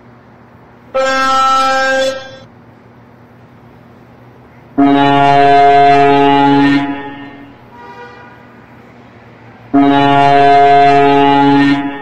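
Truck air horns sounding: a shorter, higher blast about a second in, then two long, low, steady blasts of about two seconds each, with a faint short toot between them. A steady low engine and traffic hum runs underneath.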